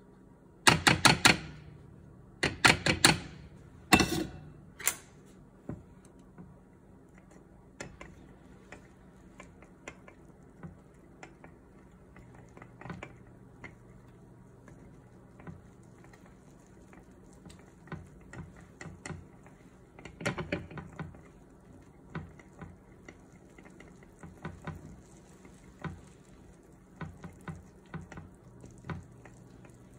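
Plastic chopsticks stirring flour into milk in a glass mixing bowl, ticking and clicking against the glass. There are loud runs of quick clinks in the first few seconds, then lighter, scattered taps as the batter is mixed.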